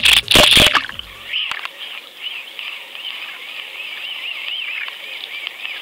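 An underwater fishing camera splashing into the sea: about a second of splashing and sloshing, then muffled underwater hiss with a faint high wavering whine as it hangs on the line below the surface.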